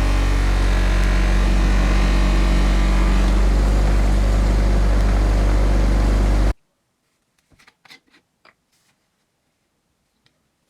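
Electric motor of a workshop power tool running steadily with a loud mains hum, cutting off abruptly about two-thirds of the way in. A few faint taps follow in near silence.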